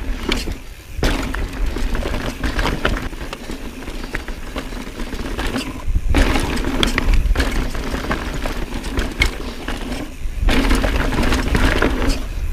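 Mountain bike ridden fast over rocky desert singletrack: tyres crunching on dirt and stones and the bike rattling with many sharp knocks, under heavy wind rumble on the camera microphone. The noise drops briefly three times, about a second in, around six seconds and near ten seconds.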